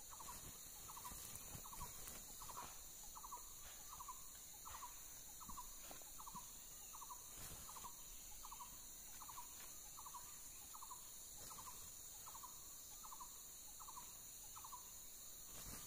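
Faint, evenly repeated animal call: short rattling notes, about one and a half per second, that stop shortly before the end, over a steady high insect-like hiss.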